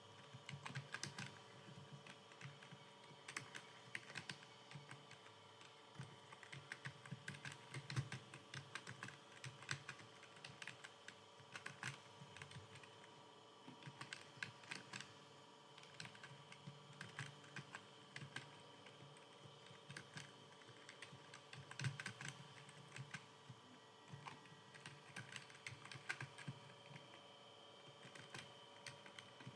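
Computer keyboard being typed on continuously, keys clicking at an uneven pace with occasional louder strokes, over a faint steady hum.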